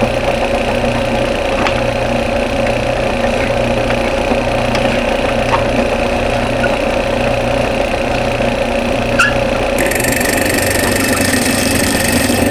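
Drill press used as a milling machine, its motor and spindle running steadily at the low 700 RPM speed. About ten seconds in, the half-inch square end mill starts cutting into a pine board, adding a higher, hissy cutting noise over the machine's hum.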